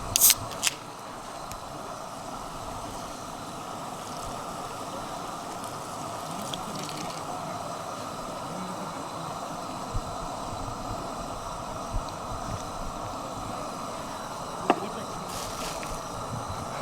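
Steady rushing hiss of running water, with a couple of sharp clicks at the very start and a few light knocks later on.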